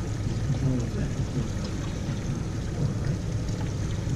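Steady low rumble with a fainter wash of noise above it, the open-air sound aboard a small outboard boat at sea; no single knock or call stands out.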